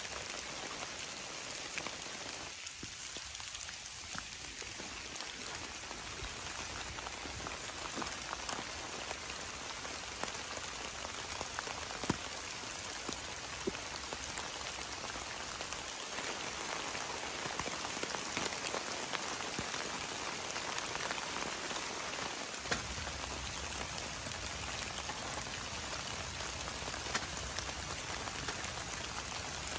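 Heavy rain falling steadily, with scattered louder single drops striking close by.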